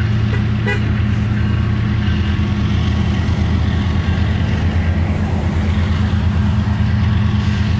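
Diesel freight locomotive engines running as the train comes up, a steady low drone with no change in pitch.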